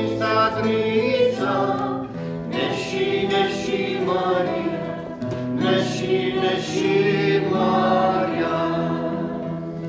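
Several voices singing a slow song in harmony, holding long notes over a steady low sustained note.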